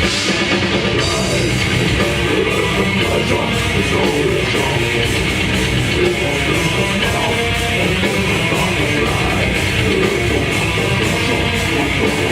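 Death metal band playing live: distorted electric guitars, bass and drum kit at full loudness, with rapid, even drum hits.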